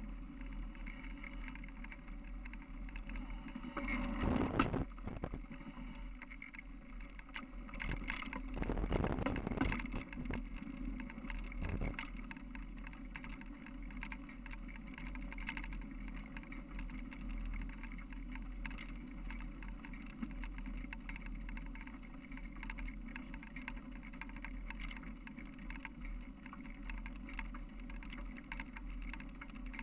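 Walking on a gravel trail with a handheld camera: a steady rumble of handling and wind noise over a constant low hum, with many small crunches and clicks from footsteps on the gravel. There are two louder rushes of noise, about four seconds in and again around nine seconds in.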